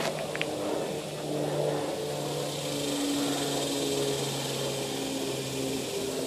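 A steady engine hum whose pitch steps slightly up and down every second or so, with a couple of faint ticks just after the start.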